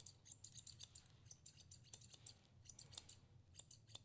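Grooming shears snipping through a small dog's coat: quiet, quick snips in irregular runs of several a second, with a short pause about halfway.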